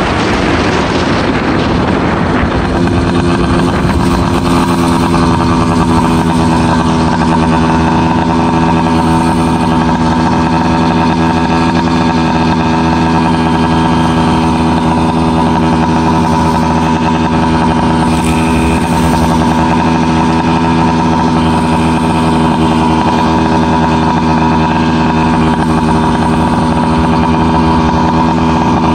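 FM-80 two-stroke motorized-bicycle engine with a small expansion-chamber exhaust, coming down off throttle in the first couple of seconds, then idling steadily with an even, unchanging note.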